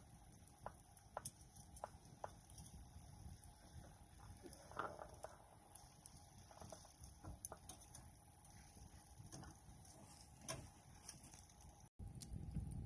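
Wood campfire burning, with scattered crackles and pops over a low steady rumble and a faint steady high-pitched whine. The sound cuts out for an instant about a second before the end.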